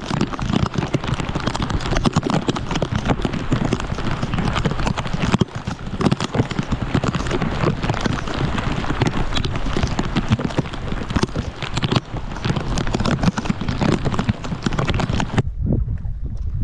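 Heavy rain driven by wind, the drops striking close to the microphone in a dense crackle over a low wind rumble. About fifteen seconds in it cuts off to wind buffeting the microphone alone.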